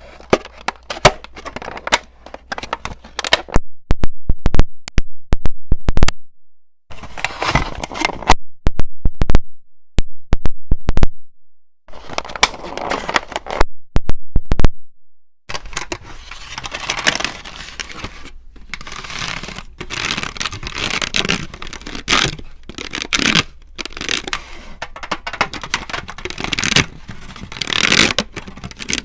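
Long fingernails tapping and scratching close to the microphone: many sharp clicks and stretches of scratchy, scraping noise, denser and more continuous in the second half.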